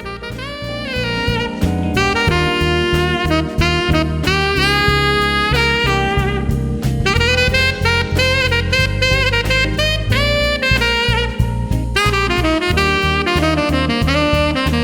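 Saxophone playing a melody over a band backing with drums and bass, many of its notes scooped up into pitch.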